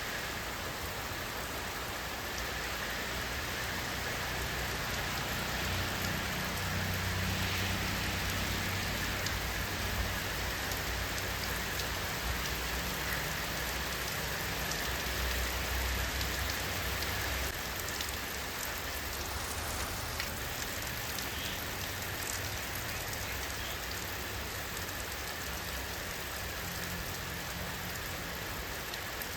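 Steady rain falling, an even hiss of many drops, with a low rumble swelling underneath for about ten seconds in the middle.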